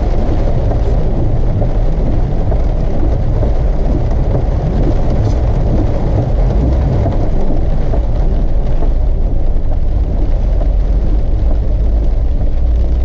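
Steady low rumble of a car driving, with engine and tyre noise on the road.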